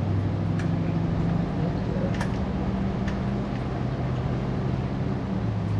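Freshly installed Ford 302 small-block V8 running at a steady idle, with a few light clicks over it.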